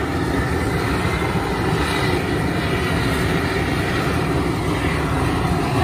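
Propane jet burner under a large boiling stock pot, running with a steady, low rushing noise.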